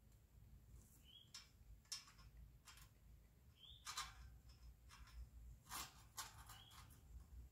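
Near silence: faint scattered clicks and scrapes of wire fencing being handled, bunched together about six seconds in, and a few faint short bird chirps.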